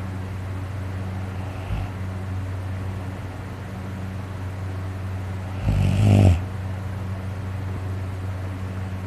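A sleeping man snoring heavily: a faint snore about two seconds in and one loud snore of under a second about six seconds in, over a steady low hum.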